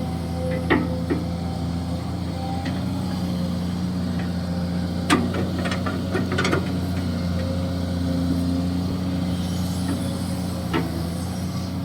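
Hydraulic excavator's diesel engine running steadily at work, with a few short sharp knocks, the loudest about five seconds in.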